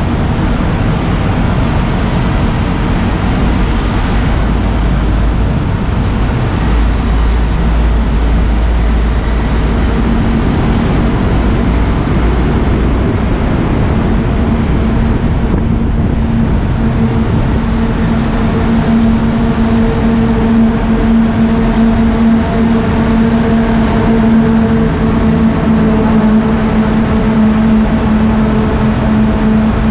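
KTM Duke 125's single-cylinder four-stroke engine running at a steady cruise through a road tunnel, mixed with heavy wind rumble on the camera microphone and the echoing noise of surrounding traffic. A steady droning note grows stronger in the second half.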